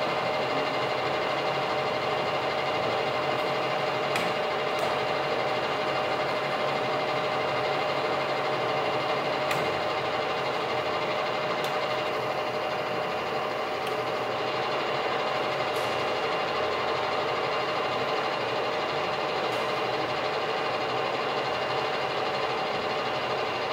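Knuth KBF 50 drill-milling machine running free with no cut, its spindle motor and gearbox giving a steady whine of several fixed tones. A few faint clicks come and go over it.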